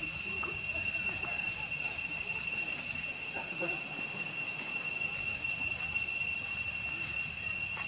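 Steady insect chorus: a continuous shrill high drone at two pitches that never lets up. Faint voices murmur underneath.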